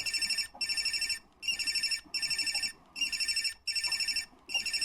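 Old BlackBerry phone ringtone: a high electronic trilling ring sounding in short bursts of about half a second with brief gaps, seven times.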